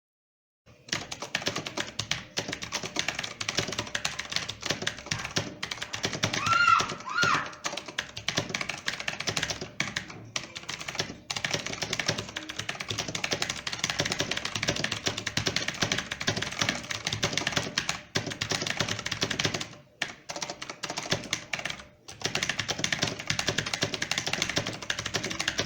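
Motospeed CK888 mechanical keyboard with clicky blue switches being typed on fast, a dense run of key clicks with brief pauses about 20 and 22 seconds in. About a quarter of the way in, two short pitched chirps sound over the clicking.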